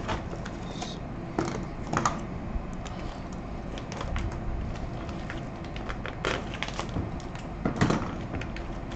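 Clear plastic bag around a new PLA filament spool being opened and handled by hand: irregular crinkling and crackling, loudest about two seconds in and near the end, over a steady low hum.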